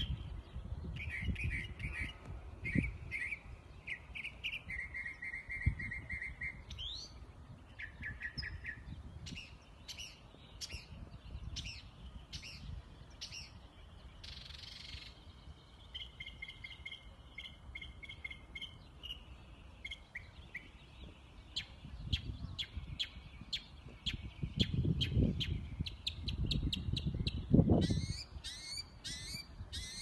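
A songbird singing a long, varied song: a string of different phrases of chirps, trills and quick repeated notes, each repeated a few times before switching to the next, so that it makes many different sounds. A low rumble rises in the second half.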